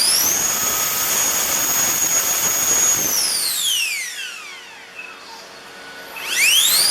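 JP 120mm all-metal electric ducted fan on 14S running at a steady high whine. About three seconds in it is throttled back and winds down over a second and a half. Near the end it spools up sharply to full whine again.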